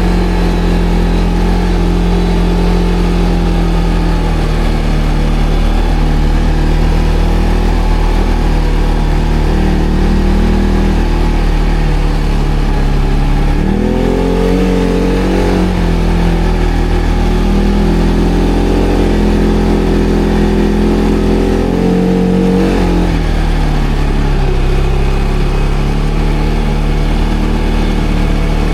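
ATV engine running at low revs, with the throttle opened about halfway through: the revs rise, hold with a brief dip, and fall back to a low run about four-fifths through.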